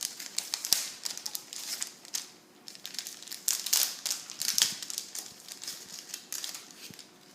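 Irregular crinkling and rustling of plastic and paper craft pieces being handled, with many small sharp crackles.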